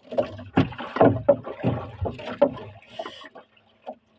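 A quick, irregular run of knocks and thumps on a small boat's hull, with rustling, as a fishing handline is hauled in hand over hand. It dies away after about three and a half seconds, with one last knock near the end.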